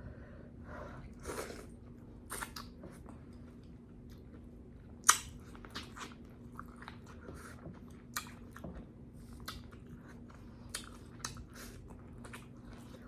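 Close-miked mouth sounds of someone biting and chewing corn on the cob: a string of separate wet smacks and crisp kernel crunches, the sharpest about five seconds in.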